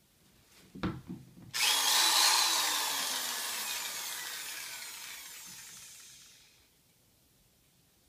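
A couple of light knocks, then a corded electric drill with a masonry bit starts suddenly. Its motor whine falls steadily in pitch and fades away over about five seconds as it spins down.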